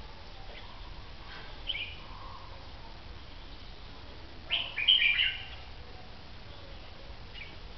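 Caged red-whiskered bulbul calling: a short note near two seconds in, then a louder phrase of several quick, clear notes lasting about a second, a little past the middle.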